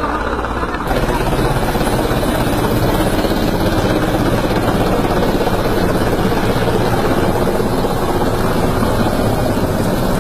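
A loud, steady mechanical drone with a low rumble underneath, stepping up in level about a second in.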